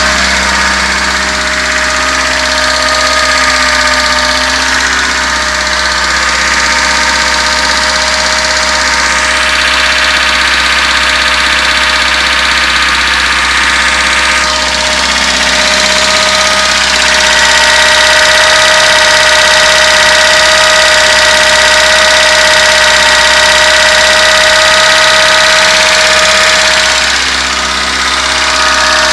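1976 VAZ 2106 Zhiguli's freshly rebuilt four-cylinder carburetted petrol engine idling steadily, with a knock that the owner feels is coming from somewhere in the engine.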